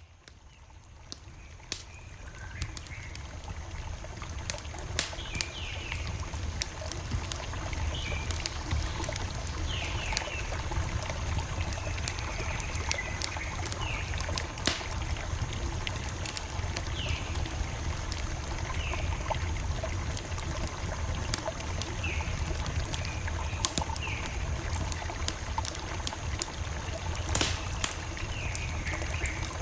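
Campfire crackling: irregular sharp pops and snaps over the low rumble of the burning fire, fading in over the first few seconds. A bird calls with short, falling chirps every couple of seconds.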